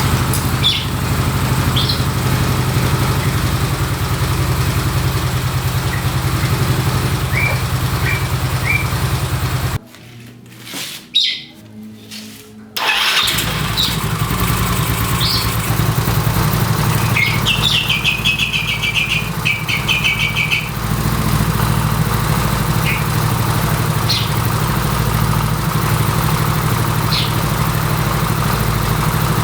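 Yamaha Mio scooter's bored-up 150 cc single-cylinder four-stroke engine running steadily. It stops about ten seconds in, then starts again a few seconds later and runs on. Birds chirp in the background.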